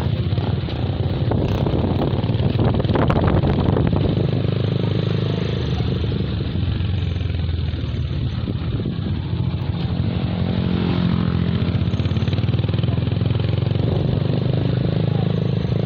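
Motorcycle engine running steadily while riding in slow traffic, mixed with the engines of motorcycle tricycles close by. A brief rattling clatter comes about two to four seconds in.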